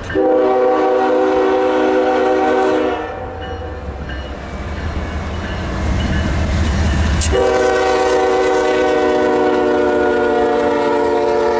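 Norfolk Southern diesel locomotive sounding its air horn, a chord of several tones, in two long blasts of about three and four seconds. A low rumble of the train fills the gap between them.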